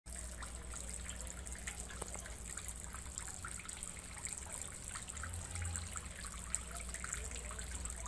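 Thin water jets from a tabletop PVC-pipe fountain falling and trickling into a shallow tub of pebbles, a steady patter of small splashes over a low steady hum.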